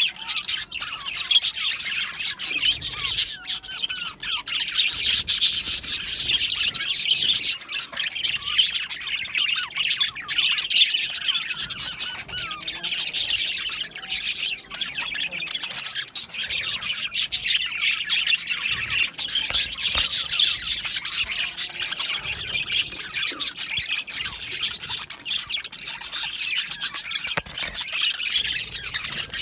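A flock of budgerigars chattering, with many overlapping chirps, warbles and squawks.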